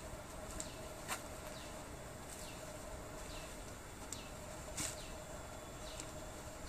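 Birds calling with short falling chirps, repeated about once a second, over a steady background hum of insects, with two sharper high notes about a second in and near five seconds.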